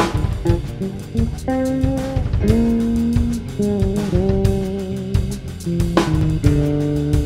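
Electric bass played fingerstyle through a Fuhrmann Bass+ compressor pedal: held notes and double-stops with a few short slides between notes, the compressor keeping the level even.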